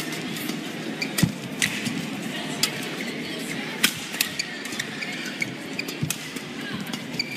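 Badminton rally: rackets striking the shuttlecock in a fast exchange, sharp cracks about once or twice a second, over the steady hum of an indoor arena.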